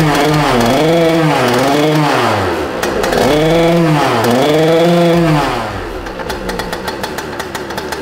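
JetSurf Race DFI motorised surfboard's small two-stroke engine revved in a series of short blips, its pitch rising and falling about once a second. At about five and a half seconds it drops back to a lower, rougher run with rapid crackling ticks.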